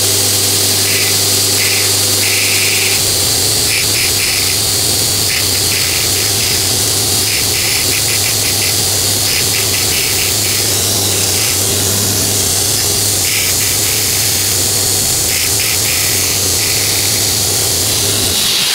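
Belt grinder with an 80-grit belt running steadily while the point of a twist drill bit is ground against it. Each time the steel touches the belt there is a short, raspy grinding sound, on and off, as the point is ground a little on one side, then the other.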